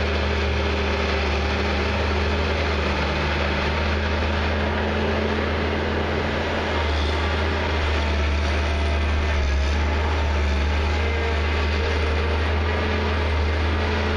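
Prentice 210E knuckleboom log loader working, its diesel engine giving a steady low drone as the boom and grapple handle logs.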